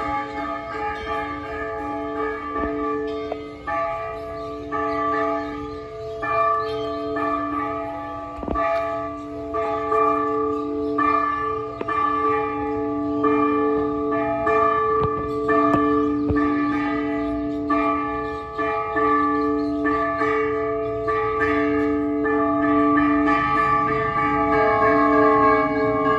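Cathedral bells ringing a festive repique: several bells of different pitch struck over and over in quick, overlapping strokes, each tone ringing on under the next.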